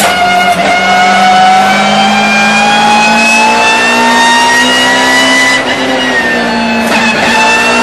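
A race car's engine heard from inside the cockpit under hard acceleration, its pitch climbing steadily for several seconds, then dropping abruptly with an upshift about two-thirds of the way through and again near the end.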